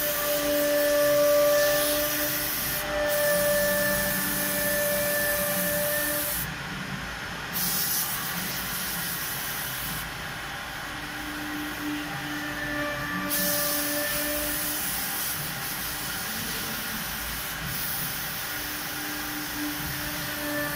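Multi-spindle CNC wood router running with a steady whine as it cuts a wood panel, under the hiss of a compressed-air blow gun clearing chips. The hiss stops twice in the middle, once briefly and once for about three seconds.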